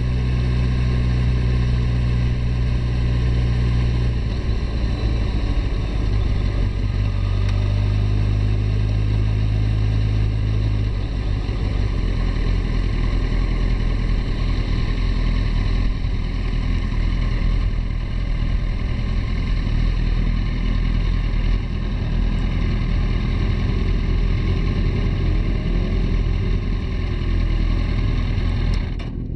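Suzuki Hayabusa's inline-four engine running at low revs, heard close up from an onboard camera as the bike rolls slowly. The note is steady, shifts about four seconds in and again near eleven seconds, then becomes a rougher, noisier rumble for the rest.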